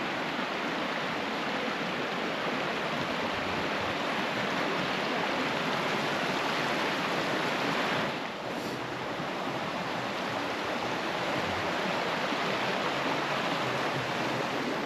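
Rushing river water, a steady even rush that dips briefly about eight seconds in.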